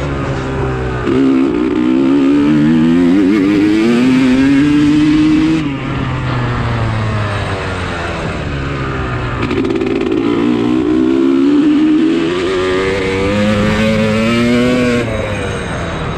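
Dirt bike engine revving hard, its pitch climbing and dipping as it shifts through the gears. It backs off about five and a half seconds in, pulls hard again from about ten seconds, and eases off near the end.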